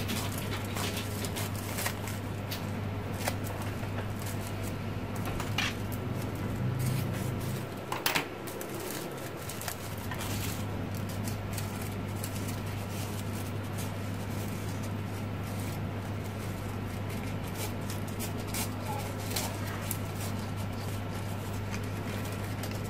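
Crepe paper rustling and crinkling as it is cut with scissors and shaped by hand, with scattered small clicks, over a steady low hum. A short chirp about eight seconds in.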